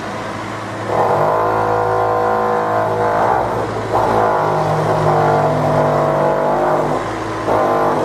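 A heavy engine revving in repeated surges of a couple of seconds each, over a steady low machine hum. The engine sound starts about a second in and briefly drops near the three- and seven-second marks.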